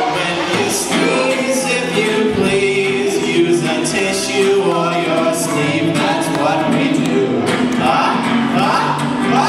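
Live performance of a children's song: voices singing over instrumental accompaniment.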